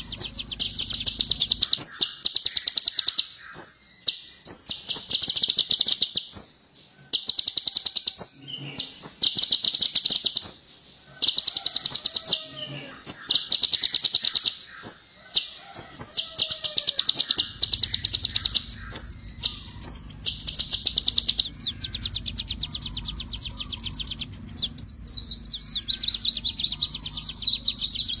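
Van Hasselt's sunbird (kolibri ninja) singing in long, rapid, high-pitched trills of sharp ticking notes, broken by short pauses. A low hum runs underneath at the start and again through the last third.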